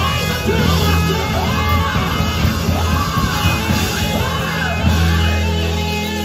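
Live gospel band playing, with electric bass, drums and keyboard through a PA, while a lead singer shouts and sings sliding ad-lib lines over the groove.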